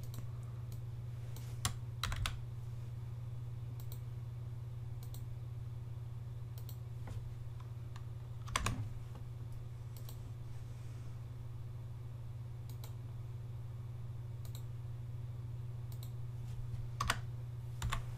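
Scattered, irregular clicks of a computer keyboard and mouse as a link is edited, a dozen or so separate strokes with a slightly louder one about halfway through, over a steady low hum.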